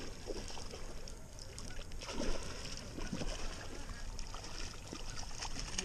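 Water splashing at the surface as a bass takes a topwater Whopper Plopper lure and thrashes on the line while it is reeled in, over wind rumble on the microphone.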